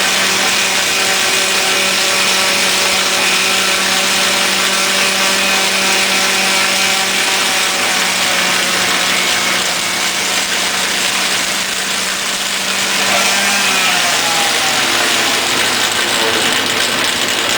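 Power tool running steadily while a wood baseball bat is polished with 400 grit: a constant motor hum under the hiss of abrasive on wood. About three-quarters of the way in, the hum shifts pitch briefly.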